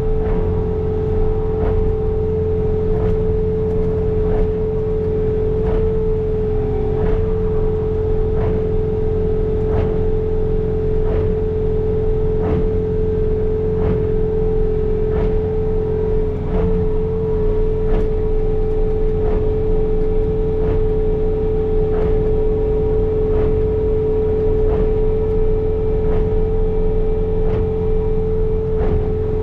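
Bobcat T66 compact track loader running under load with its snow blower attachment, heard from inside the cab: a steady engine drone with a strong, even high whine over it, and light ticks about once a second.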